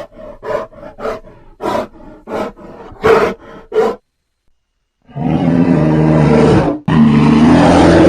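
Creature sound effect for the extinct giant short-faced bear (Arctodus simus): a quick run of about eight short grunts over four seconds, a pause, then two long, loud roars back to back.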